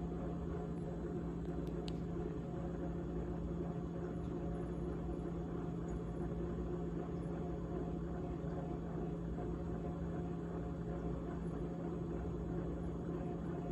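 GE GTH18XCTZRBB refrigerator running with a steady hum and a continuous rattling buzz, the abnormal rattle its owner is recording.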